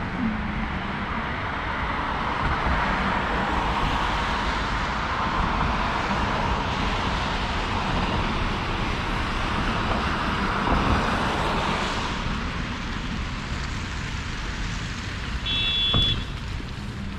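Road traffic on a city street: the tyre and engine noise of passing vehicles swells and then fades over about ten seconds. Near the end comes a short high beep.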